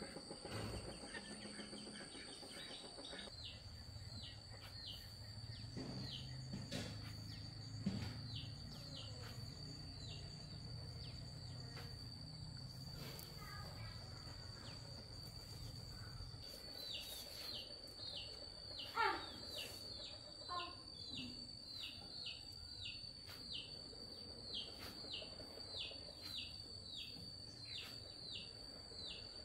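Outdoor ambience: a steady high insect drone, with a bird chirping over and over in short falling notes, about two a second, from about halfway through. A low hum sits under the first half.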